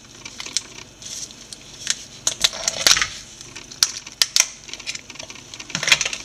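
Irregular clicks and cracks of a boiled blue crab's shell being pried off and broken apart by hand.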